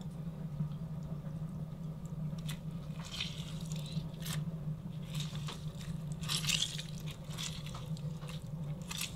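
Rabbit pieces being squished and turned by hand in a wet tomato-paste and onion marinade, in a few short squelching bursts with a click or two, over a steady low hum.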